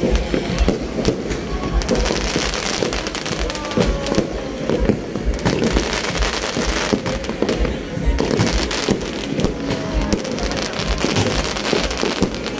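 Aerial fireworks shells bursting overhead, many bangs in quick succession.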